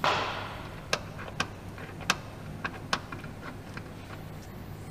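Sharp, irregular metal clicks and taps of a spanner and brake-line fittings being handled at a car's wheel arch, about half a dozen over a few seconds, after a brief scraping rush at the start.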